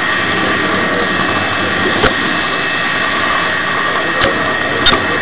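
The LokSound decoder of a model Class 66 locomotive plays a diesel engine running sound through its small speaker, mixed with the steady whir and whine of the model running on the track. Three sharp clicks come about two, four and five seconds in.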